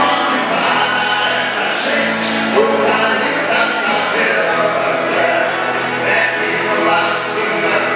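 Sertanejo duo, two men singing together into microphones over two strummed acoustic guitars, amplified through stage speakers.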